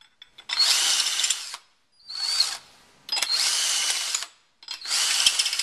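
DeWalt cordless drill spinning a unibit step drill bit in the bolt holes of a sheet steel plate to cut off the burrs, in four short runs of about a second each with brief pauses between.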